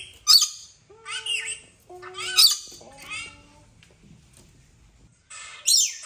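Rainbow lorikeet squawking: about four short, shrill screeches in the first three seconds, then a pause and a louder screech near the end.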